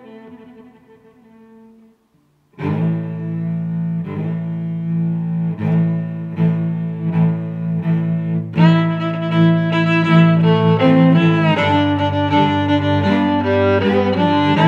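Background orchestral music led by low bowed strings. It dies away about two seconds in, stops briefly, then comes back louder with a steady pulsing beat and grows fuller about halfway through.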